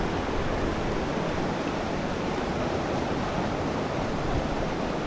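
Steady rushing of creek water running through rapids.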